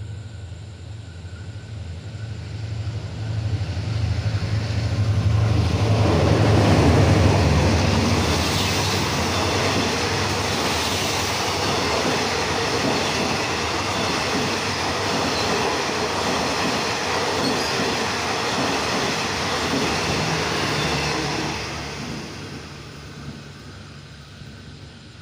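Diesel-hauled passenger train running through the station without stopping. The locomotive's low engine drone builds over the first several seconds, then the carriages pass with a steady rush of wheel and rail noise for about fifteen seconds, fading away near the end.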